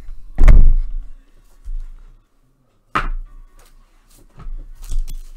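Handling noise on a tabletop: a heavy thump about half a second in, a sharp click about three seconds in, and a few softer knocks.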